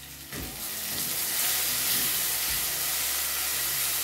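Tomatoes sizzling in a frying pan on a gas stove, stirred with a wooden spoon. The hiss swells shortly after the start and then holds steady, with a couple of faint knocks of the spoon.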